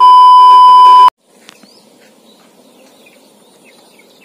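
A loud, steady test-tone beep, the kind played over TV colour bars, lasting about a second and cutting off sharply. After it comes faint outdoor background with scattered short bird chirps.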